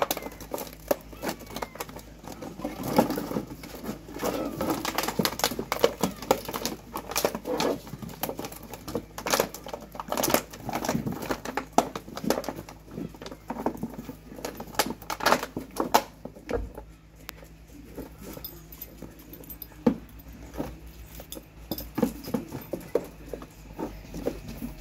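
Puppies scrabbling and playing in sand inside a plastic paddling pool, knocking empty plastic water bottles about: irregular clicks, crinkles, knocks and scuffles, with fewer sharp clicks in the last third.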